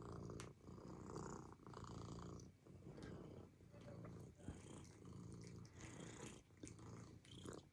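Domestic cat purring faintly, the purr rising and falling with each breath about once a second.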